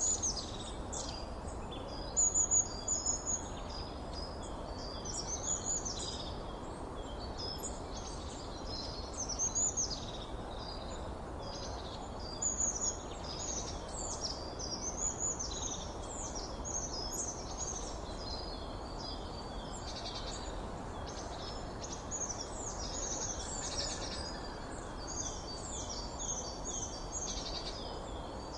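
A chorus of small songbirds chirping and singing over one another, quick high notes and short warbled phrases throughout, over a steady background noise. A few calls stand out louder than the rest, about two seconds in and again around ten and thirteen seconds.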